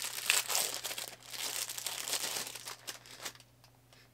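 Thin plastic food wrapper crinkling and tearing as a packaged bread roll is pulled open by hand. The crackling stops a little over three seconds in.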